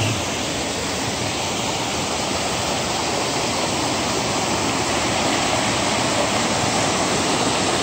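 Rock Brook, swollen with Hurricane Ida's floodwater, rushing and splashing over rocks and rubble in a steady, unbroken rush of water.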